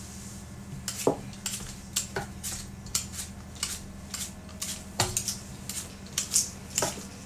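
Apple being peeled by hand with a kitchen knife: light, irregular scrapes and clicks of the blade, two or three a second, over a low steady hum.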